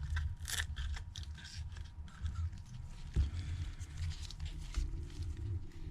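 Small clicks, ticks and scrapes of a pry tool working an iPhone XS display loose from its frame, with a low hum underneath.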